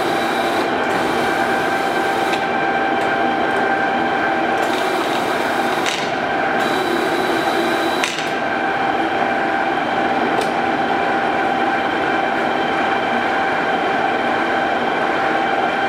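Toolmex TUR-630A engine lathe running under power with the spindle turning: a steady whine from the geared headstock, with a few sharp clicks over it, the loudest about eight seconds in.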